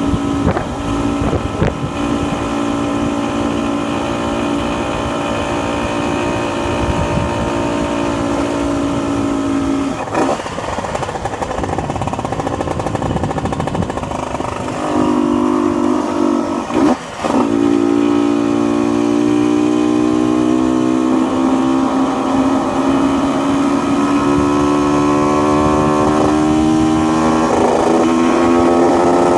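Honda NSR two-stroke motorcycle engine heard from the rider's seat, holding steady revs for about ten seconds. The note then breaks up and the revs drop briefly about seventeen seconds in. After that the pitch climbs steadily as the bike accelerates.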